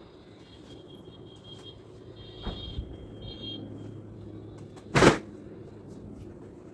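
Laundry being handled by hand: a cloth garment gives a short sharp snap about five seconds in as it is shaken out, with a softer rustle and knock about halfway through.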